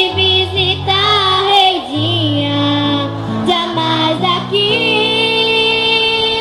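A choir singing with instrumental accompaniment over a stepping bass line; about five seconds in, the music settles on a long held chord.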